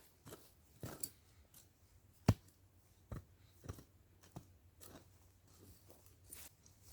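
Irregular short, sharp clicks and knocks, about one every half second to a second, the loudest a little past two seconds in: close-up handling sounds.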